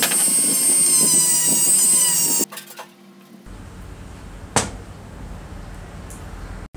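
Electric rotary tool with a sanding drum running at high speed, a high steady whine that cuts off abruptly about two and a half seconds in. After a quieter stretch comes a single sharp knock as the aluminium housing is handled on the workbench.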